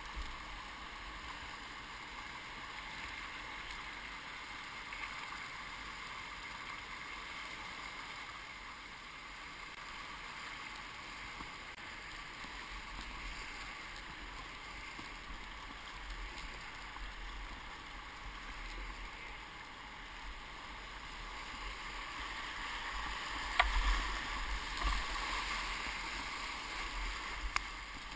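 Whitewater rapids rushing steadily around a kayak. The water swells into louder splashing about three-quarters of the way through, with a few sharp knocks of the paddle and waves against the boat.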